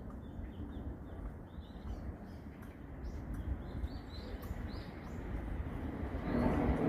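Short high-pitched chirps in loose clusters over a low steady rumble, with a louder rumble building near the end.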